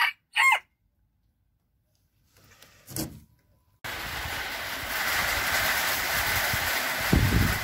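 A broody hen's short call at the very start. After a gap, a steady rushing hiss starts abruptly and runs on, with a low thump near the end.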